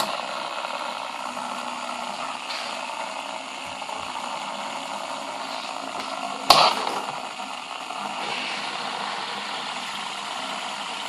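Fidget spinner whirring steadily on its bearing after being set spinning, with one sharp click about six and a half seconds in.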